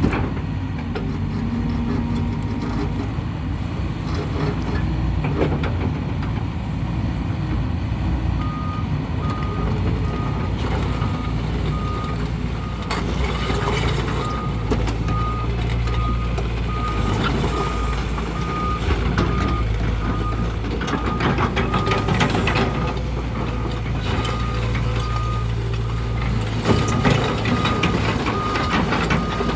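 2021 Hyundai HX160L tracked excavator running, its engine humming steadily, with its alarm beeping at an even rate from about a third of the way in, over intermittent clanking and rattling as the machine moves.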